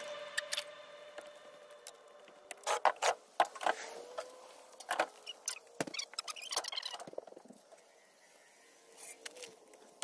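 Irregular light clicks and taps, some in quick clusters, over a faint steady tone.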